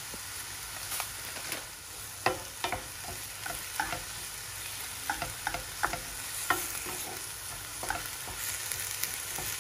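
Callaloo sautéing in butter in a non-stick frying pan with a steady light sizzle, while a wooden spoon stirs and scrapes through it, giving scattered clicks and scrapes against the pan.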